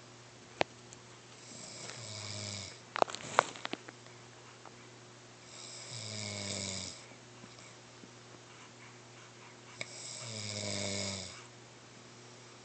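Snoring: three long snores about four seconds apart, each lasting about a second. A few sharp clicks about three seconds in are louder than the snores.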